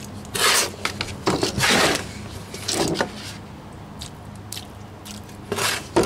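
A trowel scraping and churning a stiff, barely damp mix of masonry sand and Portland cement in a wheelbarrow, in a few separate strokes. The mortar is a dry-pack mix, like wet sand.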